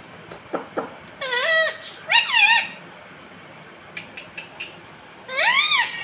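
Indian ringneck parakeet giving three short, squeaky vocalizations, each rising and falling in pitch, with a few faint clicks between them.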